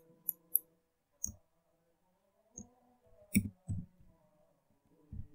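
Computer keyboard keystrokes and mouse clicks as text is typed, a handful of separate clicks with the strongest just after three and a half seconds in. Faint music plays in the background.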